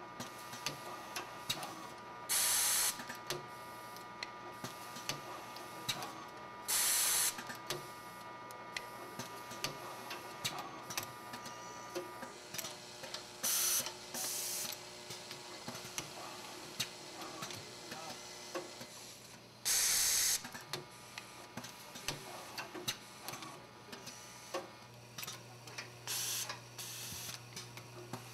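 PEMSERTER Series 3000 automatic fastener insertion press cycling: a steady machine hum with frequent sharp clicks from the tooling, broken every few seconds by short loud hisses of compressed air.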